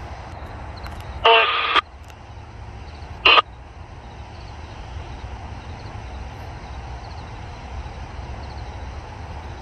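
Diesel locomotive air horn on an approaching BNSF train, sounding two blasts of a multi-toned chord: one about half a second long a little over a second in, then a shorter one two seconds later. A steady low rumble runs underneath.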